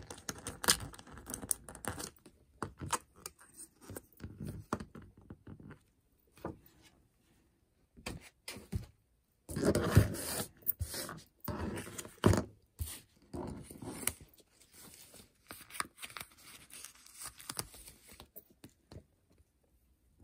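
Paper and cardstock cutouts handled on a table: scattered taps, scrapes and rustles, with a louder stretch of paper rustling about ten seconds in and short quiet gaps before it. Near the end a sticker is pressed onto a sheet of paper.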